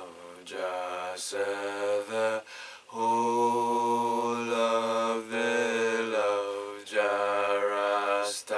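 A man's voice chanting a Rastafari prayer in long held notes, the phrases broken by short pauses for breath.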